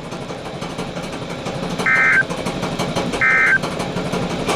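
Emergency Alert System end-of-message tones: the SAME digital data burst, a short buzzy warble about a third of a second long, sent three times about a second apart, starting about two seconds in, over steady background noise. The three bursts signal the end of the warning message.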